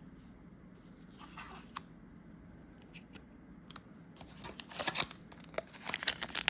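Trading-card booster pack wrapper being opened: a few faint clicks, then from about four seconds in a quick run of sharp crinkling and rustling of the wrapper, growing louder toward the end.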